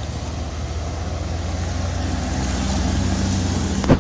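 A vehicle engine running with a steady low hum that grows slightly louder, then a single sharp knock just before the end.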